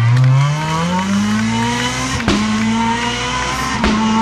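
Small hatchback rally car's engine at full throttle, pulling away: the note climbs steadily, drops suddenly with a sharp click at an upshift about two seconds in, climbs again, and shifts once more near the end.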